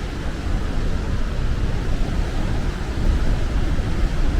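Steady rushing of a waterfall and river pouring through a rock canyon, with wind buffeting the microphone.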